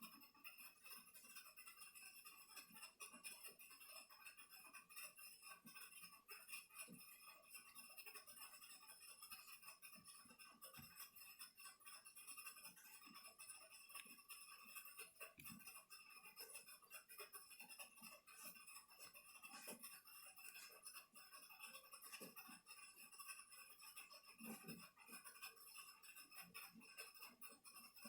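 Near silence: faint steady hiss and hum, with scattered faint small clicks.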